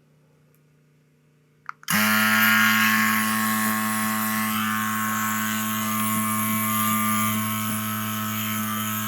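Small electric tire inflator switching on about two seconds in and running steadily with a buzzing hum and air hiss, pumping air into the Onewheel's new tire to seat its bead.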